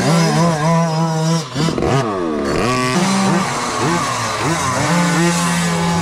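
Several small dirt-bike engines running together, idling steadily with repeated throttle blips that make the pitch swoop up and fall back.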